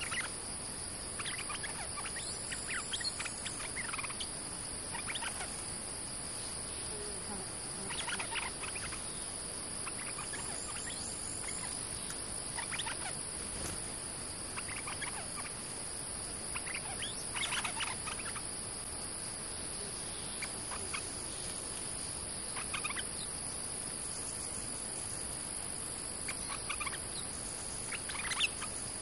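Stripe-throated bulbuls calling in short bursts of quick chattering notes every few seconds, over the steady high buzzing of insects.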